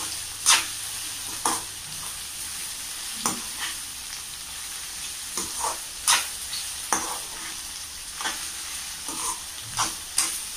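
Chopped tindora (ivy gourd) and onion frying in oil in a metal kadai: a steady sizzle, with a slotted steel spatula scraping and knocking against the pan about once a second as the pieces are stirred. The vegetables are being kept frying until they change colour.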